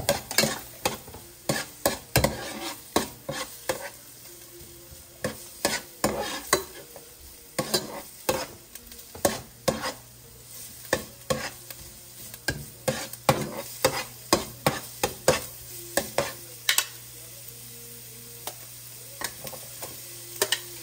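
A metal spoon scraping and clinking against a metal pot while stirring chopped garlic and ginger frying in oil, over a steady sizzle. The clinking is irregular, two or three strokes a second, and thins out about three-quarters of the way through, leaving mostly the sizzle.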